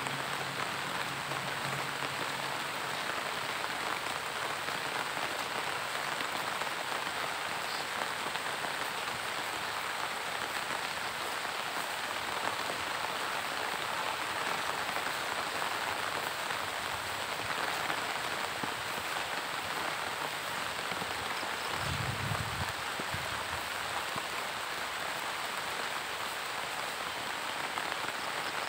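Steady monsoon rain falling on grass, leaves and pond water: an even, unbroken hiss.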